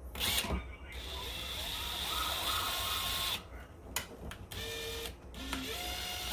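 Small electric motor of a power screwdriver running in bursts while driving a screw down: one run of about two seconds with a steady high whine, then shorter runs whose pitch shifts as the screw tightens.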